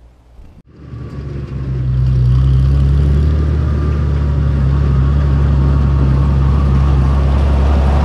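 Small tractor with a front-end loader, its engine running steadily close by. The sound comes in just under a second in and swells to full level over the next second.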